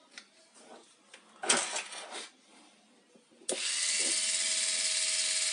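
Light handling clicks, then a switch click about three and a half seconds in. A Power Functions XL-motor with a wheel on its shaft then starts and runs steadily with no load, a continuous electric whine at one fixed pitch.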